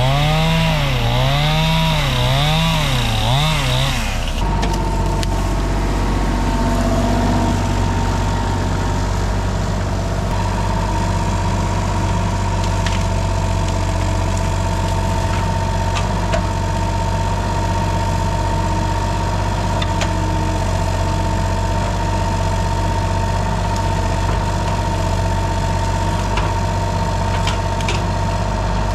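A two-stroke chainsaw revs up and down as it cuts for about the first four seconds, then cuts off abruptly. The steady running of a Kubota mini excavator's diesel engine takes over for the rest.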